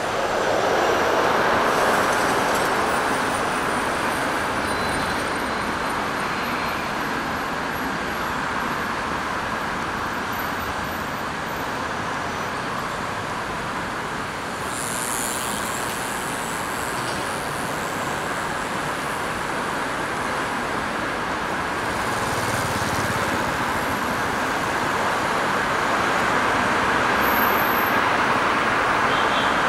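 Steady road traffic noise from cars and buses driving along a multi-lane city street, a continuous rush of tyres and engines that grows somewhat louder near the start and again toward the end.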